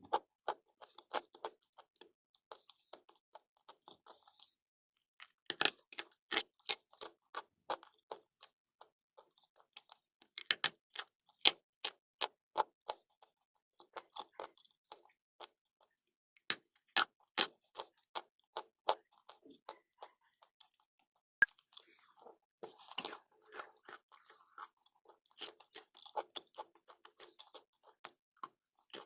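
Pieces of chalk and clay being bitten and chewed close to the microphone: sharp crunches in quick runs of several a second, broken by short pauses every few seconds.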